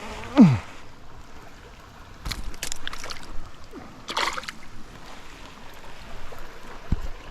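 Creek water running, with a few short splashing bursts from a small tail-hooked chain pickerel thrashing before it flops off into the water. Near the start there is a short, loud sound that slides down in pitch.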